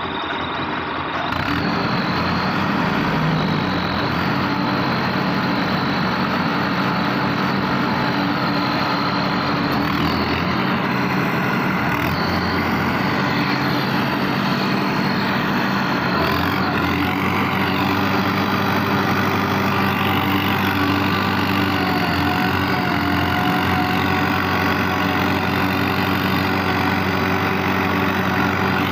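Mahindra Arjun 555 Power Plus tractor's four-cylinder diesel engine running steadily at about 1500 rpm under load, pulling a rotavator through tilled soil in first low gear. It grows a little louder about a second and a half in, then holds steady.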